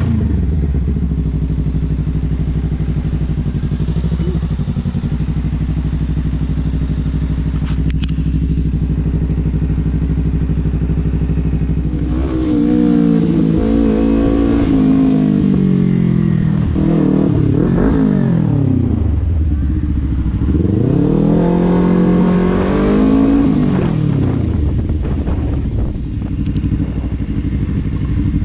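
Kawasaki Ninja 300 parallel-twin engine running steadily, then accelerating twice from about halfway through, its pitch climbing and dropping with each gear change.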